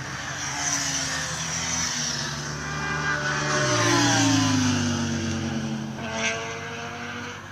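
Sport motorcycles passing at speed, their engines running high. The loudest bike goes by about four seconds in, its engine note falling in pitch as it passes.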